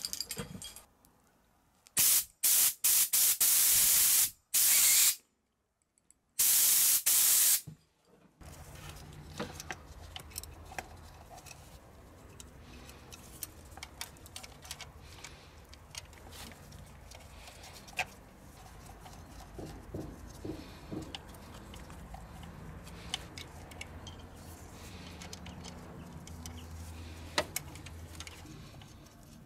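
Compressed air from a workshop compressor blown through an old high-pressure diesel fuel line to clean it out: several loud hissing blasts in the first eight seconds, separated by short pauses. After that, only faint clicks of hands handling fuel lines and connectors over a low hum.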